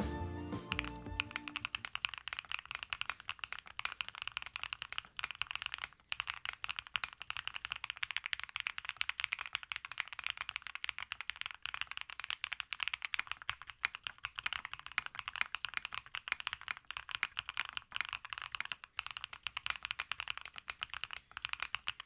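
Fast continuous typing on a Findawhale Myth-68 mechanical keyboard fitted with unlubed linear switches: a dense stream of clacky keystrokes, with a brief pause about six seconds in. Background music fades out under the typing near the start.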